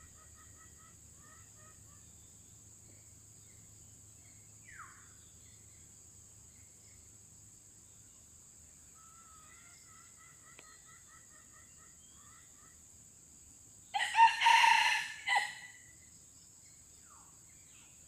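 Red junglefowl rooster crowing once, a short clipped crow of about a second and a half that breaks off briefly just before its end.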